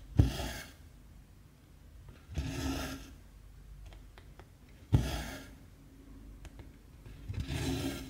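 Cotton embroidery thread being pulled through 14-count stamped cross-stitch fabric: four pulls, each about half a second long and roughly two and a half seconds apart, the first and third starting with a sharp tick.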